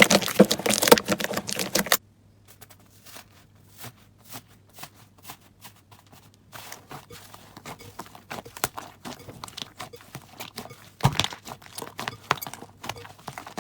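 Slime being squeezed and pressed, giving a dense run of crackles and pops. About two seconds in it cuts to sparse, faint clicks, which build back into crackling, with a loud burst of crackles near the end.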